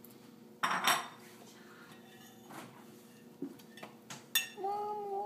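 Metal spoon clinking and scraping against a ceramic soup bowl, several separate sharp clinks, as a small child eats soup. A short vocal sound comes near the end.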